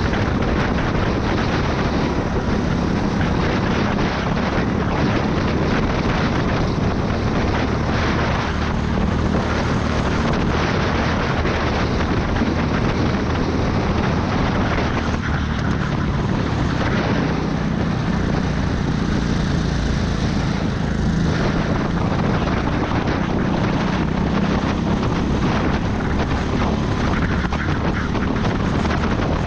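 Racing go-kart engine running hard at racing speed, heard close up from the kart itself, its pitch shifting only a little through the corners.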